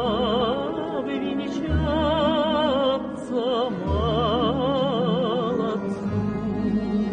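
A woman singing a Russian song with wide, strong vibrato over instrumental accompaniment with a low bass line. The voice stops about six seconds in, and the accompaniment carries on alone.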